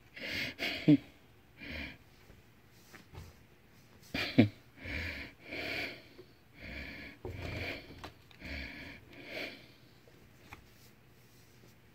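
A person breathing and laughing softly through the nose in short puffs, roughly one a second, with a few faint clicks and rustles.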